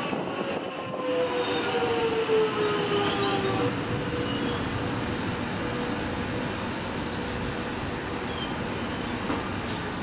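X'trapolis electric train braking into a station: its motor whine falls in pitch over the first few seconds, then high-pitched wheel and brake squeals come and go. A short hiss sounds near the end.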